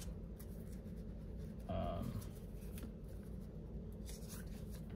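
Faint handling of stacked sticker sheets with light rustles and small clicks as they are sorted, over a low steady room hum. About two seconds in there is a brief hum-like sound.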